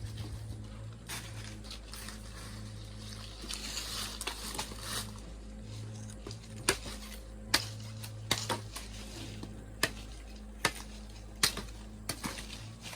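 A series of sharp knocks, roughly one a second in the second half, over a steady low hum.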